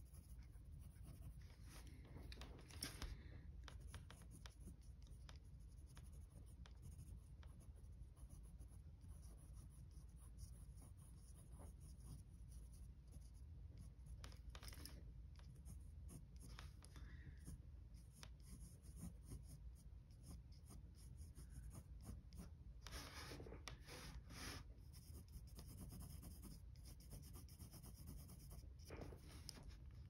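Faint scratching of a mechanical pencil's graphite on drawing paper, in short shading and lash strokes, with a few slightly louder passes along the way.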